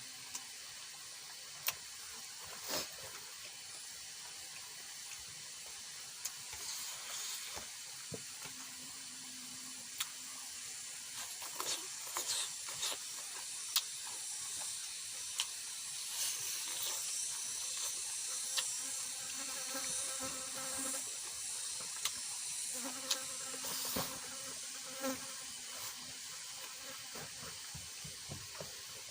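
A person eating: scattered chewing and mouth clicks over a steady high hiss.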